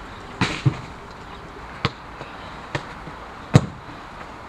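Footballs being kicked and bouncing on artificial turf: five sharp thuds at uneven intervals, the last, about three and a half seconds in, the loudest.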